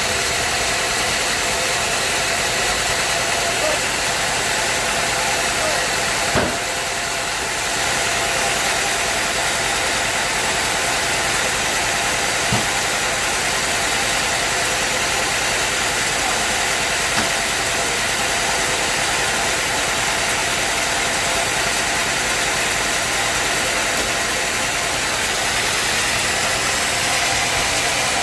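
Sawmill machinery running steadily: an engine's even hum over a hiss, with three short sharp knocks spread through.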